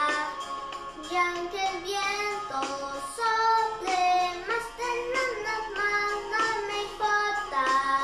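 A young girl singing a song in Spanish, her voice moving from note to note without a break.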